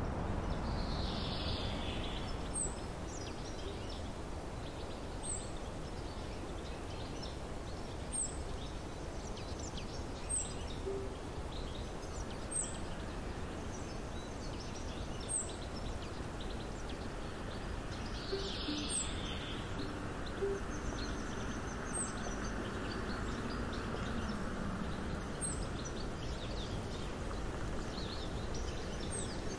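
Forest ambience: steady low outdoor noise with a short high bird chirp repeating every two to three seconds. A car approaches along the road in the second half, its tyre hiss growing.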